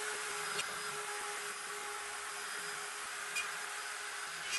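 Rotary-tool spindle of a DIY CNC machine running steadily at speed, a constant whine over a hiss, with a few faint ticks.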